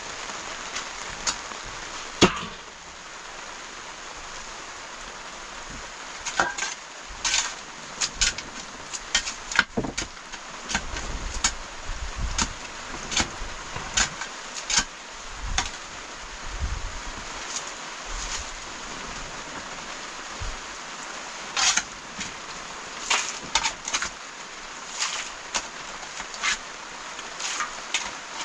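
Irregular sharp clicks and knocks, with one loud knock about two seconds in, over a steady hiss.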